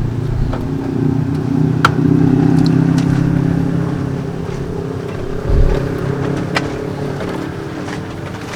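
A motor vehicle passing on the highway, its engine note swelling to its loudest about two to three seconds in and then slowly fading. A few sharp clicks and a low thump about five and a half seconds in.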